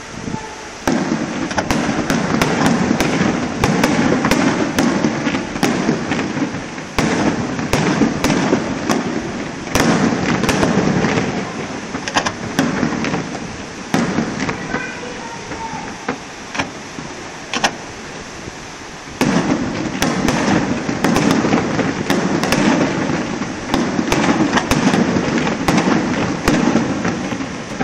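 Fireworks display: rapid crackling and sharp bangs of bursting shells, coming in dense salvos that start suddenly about a second in and again about two-thirds of the way through, with quieter lulls between.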